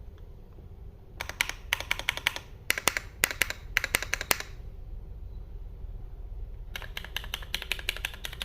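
Typing on a Foxlab F80 SE mechanical keyboard with Cherry MX Hyperglide Black switches on an aluminium plate: rapid keystroke clicks in two runs, starting about a second in, pausing briefly, and resuming near the end.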